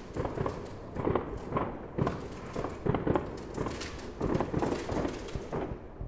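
Fireworks going off: an irregular run of bangs and crackles, several a second, some louder than others.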